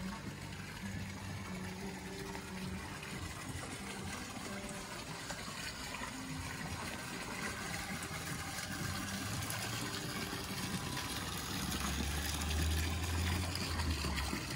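Steady rush of water spilling over an infinity pool's overflow edge, with a faint low hum that comes and goes.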